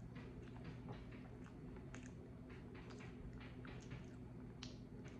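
Faint mouth sounds of eating: irregular wet clicks and smacks of chewing a soft-boiled egg on bread and licking fingers, over a low steady hum.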